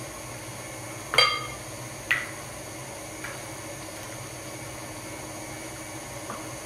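Two sharp clinks of kitchen dishware about a second apart, the first louder and ringing like glass or ceramic, then a couple of faint taps, over a steady low hum.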